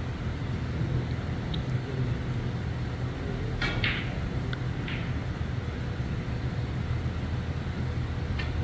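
Steady low hum of a snooker hall, with a few short sharp clicks of snooker balls: a small cluster a little before halfway, one about 5 s in and one just before the end.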